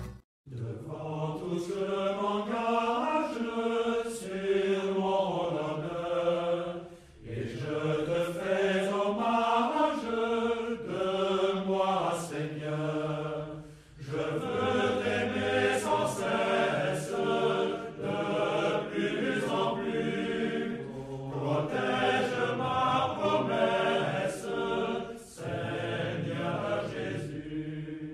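A group of voices singing a slow chant together, in phrases of a few seconds with short breaks between them.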